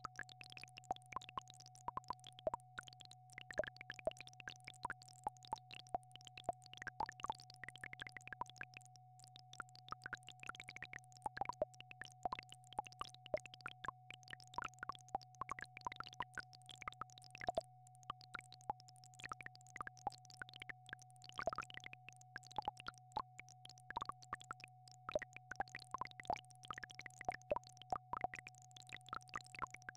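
Synthesized entrainment tones: one steady mid-pitched tone held over a steady low hum, with frequent irregular plopping clicks scattered over them.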